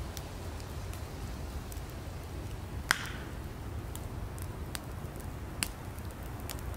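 Campfire of firewood burning, with a steady low rumble and scattered sharp crackles and pops; the loudest pop comes about three seconds in, followed by a brief hiss.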